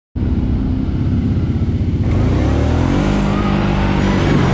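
ATV (four-wheeler) engine running under throttle, cutting in suddenly just after the start, its pitch rising as it speeds up. From about halfway there is a rushing splash of water thrown up by the tyres as it drives through a flooded trail rut.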